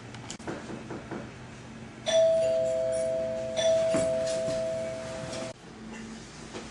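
Doorbell chime ringing two tones, a higher one followed a moment later by a lower one. It is struck again about a second and a half later and rings on until it cuts off suddenly.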